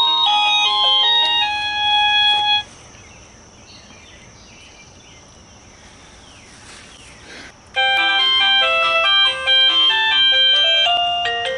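AVANTEK wireless doorbell chime unit playing one of its electronic melodies, a tune of short, clear beeping notes. The tune cuts off about two and a half seconds in, and after about five seconds of quiet a different melody starts.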